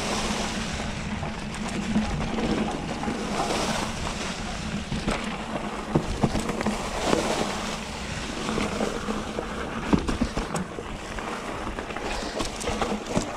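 Mountain bike being ridden along a dirt trail: wind rushing over the microphone and tyres rolling on the ground, with frequent sharp knocks and rattles as the bike goes over bumps.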